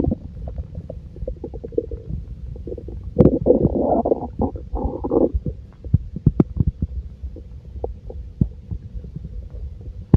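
A full stomach gurgling and rumbling: a string of short pops and squelches over a low rumble, with a longer bubbling gurgle about three seconds in that lasts around two seconds.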